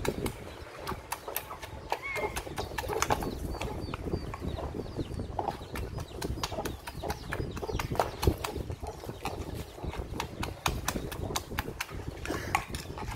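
Wooden pestle pounding in a wooden mortar: a quick, uneven run of sharp wooden knocks as the seasonings for papaya salad are crushed.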